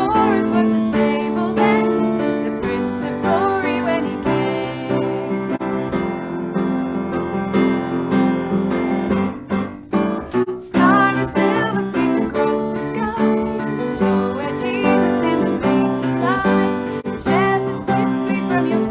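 A woman singing a Christmas carol to upright piano accompaniment, with a short lull in the singing near the middle.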